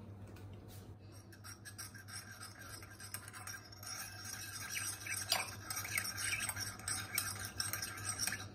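Steel spoon stirring and scraping in a ceramic bowl, mixing powdered food colour into thick sugar syrup: a faint run of quick scraping strokes with a few light clinks, starting about a second in. A low steady hum sits underneath.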